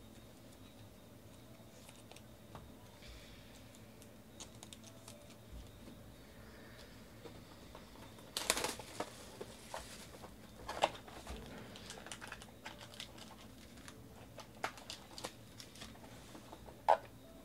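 Plastic shrink wrap crinkling and cardboard rustling as a trading card hobby box is unwrapped and opened by hand. A burst of crinkling comes about halfway through, then scattered clicks and rustles of the box and packs, with a sharp click near the end.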